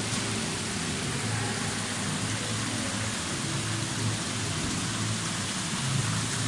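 Indoor fountain with thin jets of water arcing from the mouths of stone lion statues and splashing steadily into the basin.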